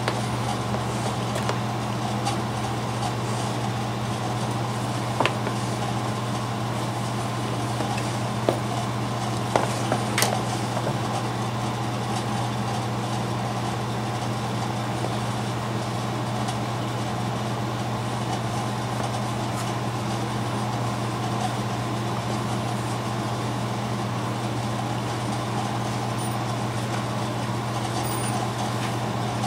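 A steady low hum, with a few small clicks of hand-stitching leather between about five and ten seconds in.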